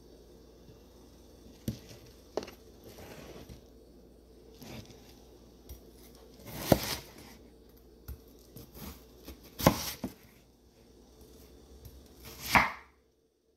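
A chef's knife cutting through watermelon and knocking on a wooden cutting board: a series of separate chops with softer slicing noise between them. The three loudest chops come about three seconds apart in the second half.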